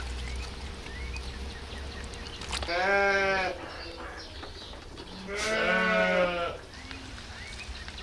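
Lambs bleating: two quavering bleats, the second longer.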